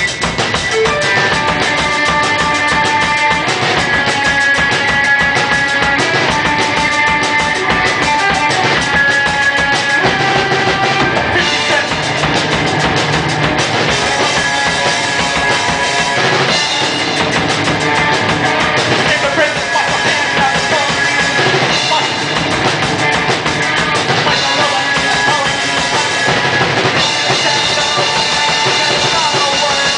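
Live rock band playing loud amplified music with a full drum kit, bass drum and snare keeping a steady beat under held guitar tones, as heard through a camera's microphone.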